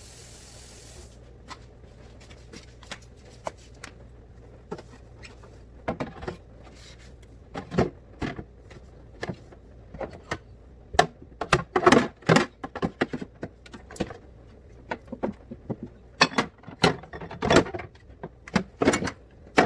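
Irregular clacks, knocks and clatter of containers and bottles being handled and set down while a refrigerator is being organized, sparse at first and growing busier and louder from about six seconds in.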